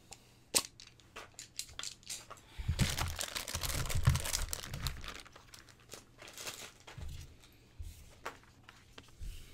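Plastic packaging crinkling and rustling as art supplies (a clear bag of small plastic lidded containers, a boxed marker set and a watercolour paint set) are picked up and cleared off a table, with a few light clicks and knocks. The crinkling is densest for about two seconds in the middle.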